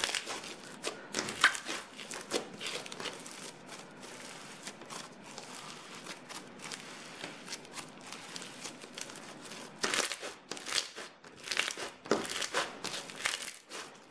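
Pink glitter slime, freshly re-thickened, being kneaded, squashed and stretched by hand. It gives irregular sticky clicks and crackles, thickest in the first couple of seconds and again over the last few, sparser in between.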